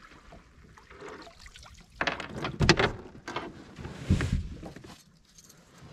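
Water splashing beside a kayak as a hooked spotted bass is brought to the boat and landed, in two loud bursts: a bigger one about two seconds in and a shorter one about four seconds in.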